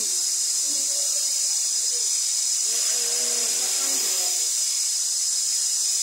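Waterfall, a steady high hiss of falling water that does not let up, with a faint voice rising over it now and then.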